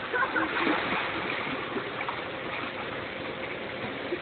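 Pool water sloshing and churning steadily as people wade around in an inflatable above-ground pool.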